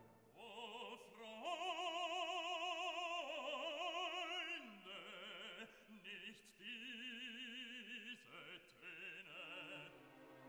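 Background music: an operatic voice holding long notes with wide vibrato, in a classical piece.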